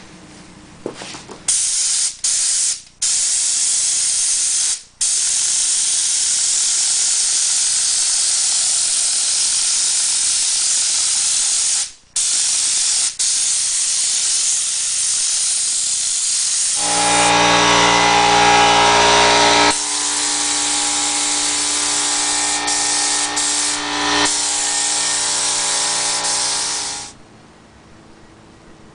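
Spray adhesive hissing out of a spray nozzle in long, steady bursts with a few short breaks, coating the door panel ready for fleece. A steady pitched hum sounds along with the hiss for its last ten seconds or so.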